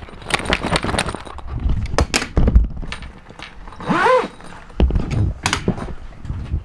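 Clicks, knocks and thumps from boat canvas and its snap fasteners being handled and from moving about on the fibreglass boat, with a heavy thump about two and a half seconds in. One short squeak rises and falls in pitch about four seconds in.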